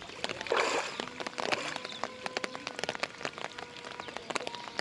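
Water splashing and dripping, heard as a dense crackle of small drops with a short louder splash about half a second in.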